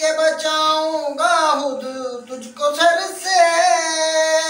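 A man's solo voice, unaccompanied, chanting a devotional Urdu kalam in a high register, drawing out long held notes with melodic bends and a short breath about two and a half seconds in.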